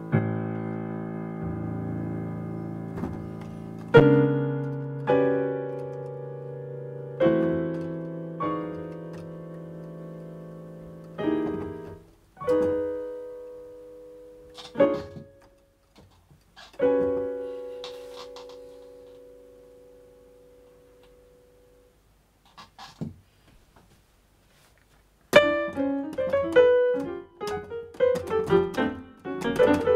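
Digital piano played with a piano voice: slow, held chords struck every second or two and left to ring and die away, then a near-silent pause with a couple of soft notes, and fast, busy playing from about twenty-five seconds in.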